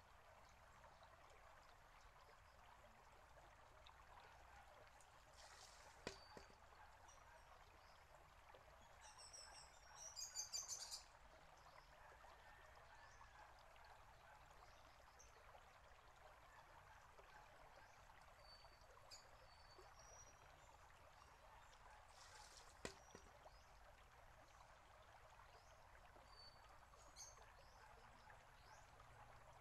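Faint steady trickle and bubbling of water from a garden fountain. Twice, about seventeen seconds apart, a short splash is followed by a sharp knock: the shishi-odoshi's bamboo tube tipping and striking its rock. A bird chirps briefly about ten seconds in.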